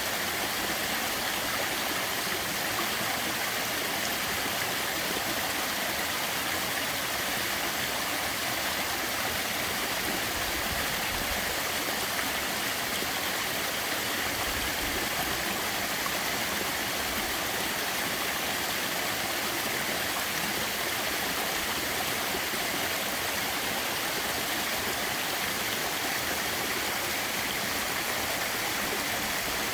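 Small waterfall at a somewhat low flow, falling water making an even, steady rush that sits mostly in the higher pitches.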